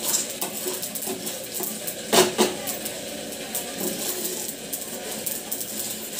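Spatula scraping and stirring black sesame seeds dry-roasting in a pan, a dense patter of small clicks as the seeds shift against the pan. A louder knock comes about two seconds in.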